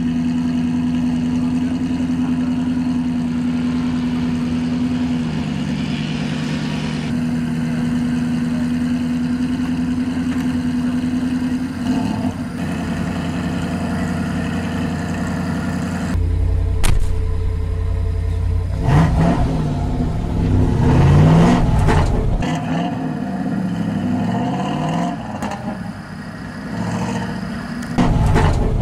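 Engine of a Land Rover-powered Bowler off-road car idling steadily. About sixteen seconds in the sound changes to the engine heard from inside the cabin, revving up and down repeatedly as the car drives off on the course.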